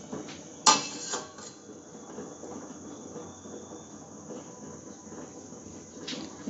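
A stainless-steel lid is set onto a steel pot of boiling rice with a sharp metallic clank a little under a second in, ringing briefly. After it there is a steady low hiss from the pot boiling on a gas burner at full flame.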